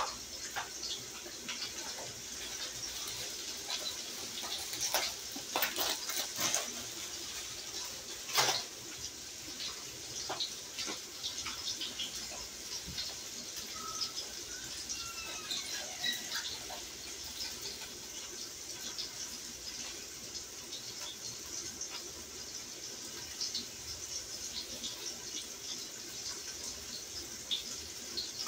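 Water running steadily from a kitchen tap, with scattered knocks and clatter from handling things, loudest about five to nine seconds in.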